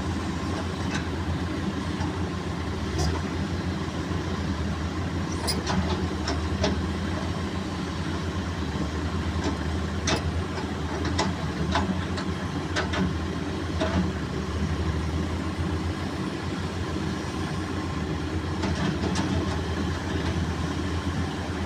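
Caterpillar excavator's diesel engine running steadily, with scattered sharp knocks over it.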